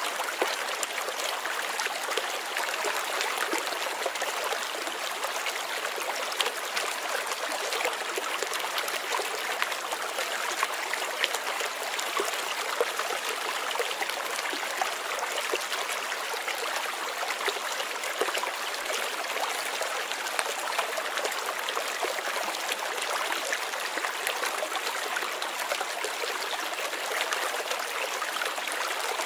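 Stream water flowing steadily over its bed, a continuous babble with many small splashes.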